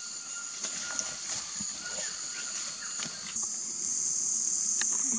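Rainforest insect chorus: a steady, high-pitched shrill drone that jumps louder about three and a half seconds in.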